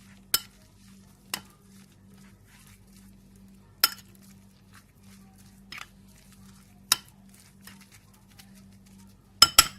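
A spoon stirring grated white radish and sugar in a bowl, the spoon clinking sharply against the bowl now and then, loudest about four and seven seconds in and twice just before the end.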